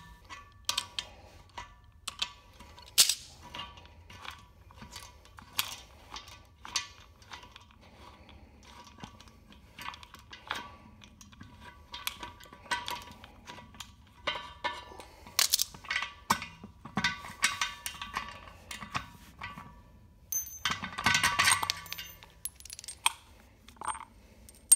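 Irregular metallic clicks, clinks and knocks as a small wheel and its metal bearing and axle hardware are handled and taken apart, a few strikes ringing briefly; a denser clatter comes about three-quarters of the way through.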